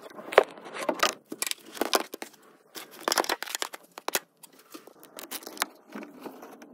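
Handling noise from a phone being pushed and rubbed through a tight cavity among fibreglass duct insulation and sheet metal: irregular crackling, scraping and rustling with sharp clicks and knocks throughout.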